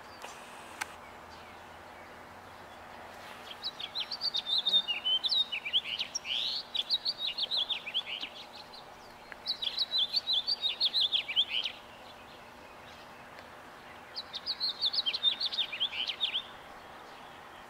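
A songbird singing three bouts of quick, varied chirping notes, each a few seconds long, with pauses of a second or two between them.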